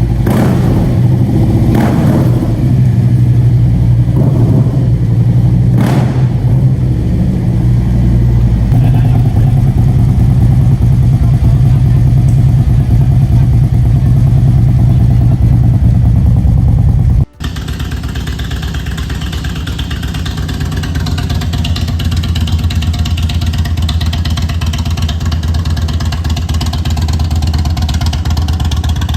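Large air- or liquid-cooled V-twin cruiser motorcycle engines running loudly in two separate recordings. The first is steady with a few sharp blips. About 17 seconds in it cuts abruptly to a second, slightly quieter bike whose sound grows louder over a few seconds.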